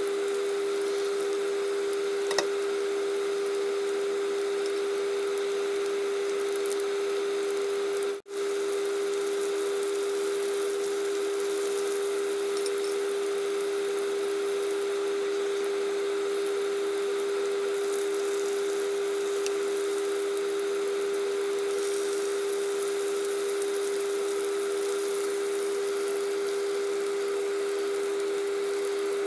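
Chicken breast pieces shallow-frying in hot oil in a pan, a steady sizzle over a constant hum. The sound cuts out for an instant about eight seconds in.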